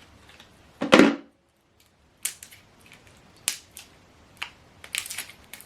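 Scattered sharp clicks and light knocks of AAA batteries and a plastic remote control's battery cover being handled, the loudest about a second in.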